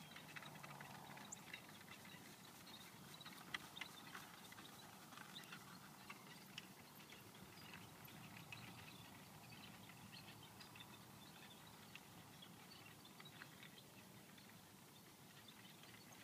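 Near silence: faint outdoor ambience with scattered light ticks and clicks at no steady rhythm.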